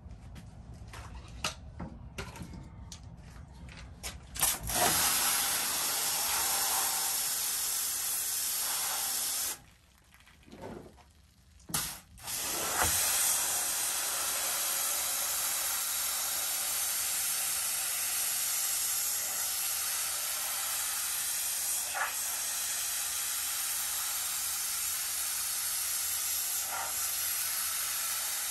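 Pressure washer wand spraying a carpeted car floor mat: a steady hiss that starts about four and a half seconds in, breaks off for about three seconds around ten seconds in, then runs on again. Before the spray starts there are a few light clicks.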